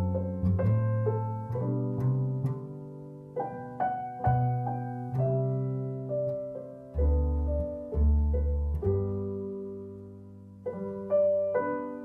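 Instrumental background music: a slow melody of single notes, each ringing and fading, with low bass notes under it.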